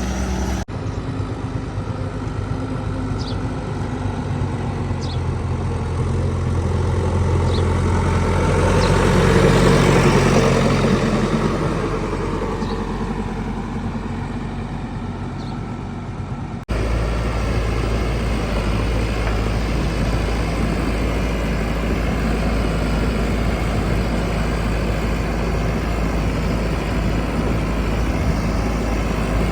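Heavy diesel engine running steadily, swelling louder to a peak about ten seconds in and then fading. The sound changes abruptly twice, about half a second in and about seventeen seconds in, to another steady engine run.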